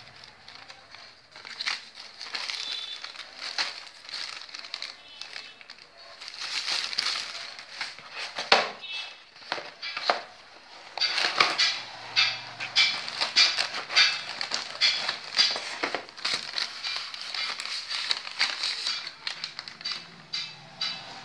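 Paper and plastic packaging crinkling and rustling as it is handled, with many sharp crackles that come thicker in the second half.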